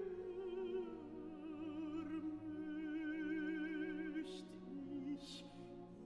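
Operatic voice singing long held notes with wide vibrato over a quiet, steady accompaniment, with two brief hisses a little after four and five seconds in.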